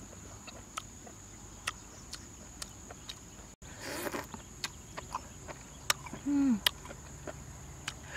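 Close-up eating sounds: lip smacks and chewing with scattered sharp clicks, a short noisy bite about four seconds in, and a brief hummed 'mm' a little after six seconds. A steady high insect drone runs underneath.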